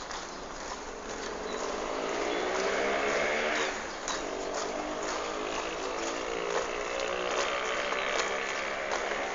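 A motor engine revving up for about three seconds, dropping off briefly near the middle, then running steadily, with scattered sharp ticks over it.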